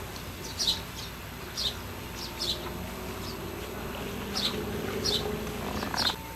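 A bird calling with short, sharp chirps that each fall in pitch, about eight of them spaced irregularly over six seconds.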